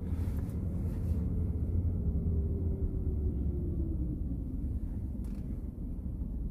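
Steady low rumble of the GMC Yukon XL driving, heard from inside the cabin, with a faint whine that falls slowly in pitch over a few seconds.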